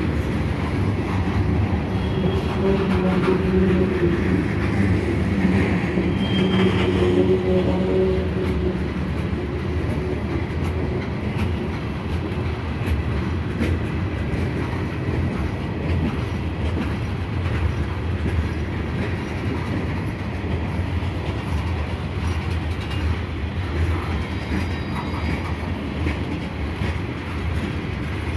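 Loaded phosphate hopper cars of a freight train rolling past close by: a steady rumble and clatter of steel wheels on the rails, with occasional clicks as wheels pass over joints.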